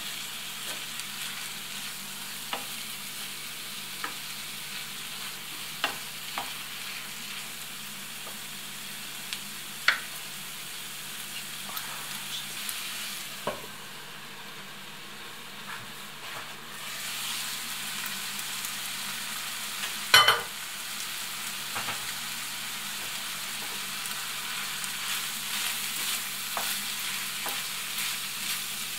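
Buckwheat with meat and vegetables frying in a pan, sizzling steadily while a wooden spatula stirs and scrapes, with scattered knocks of the spatula on the pan. For a few seconds in the middle the sizzle dulls under a glass lid, and a sharp clack comes about twenty seconds in.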